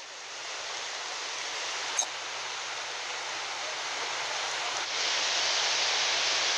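Swollen, muddy river in flood, rushing steadily and getting louder about five seconds in. A brief click about two seconds in.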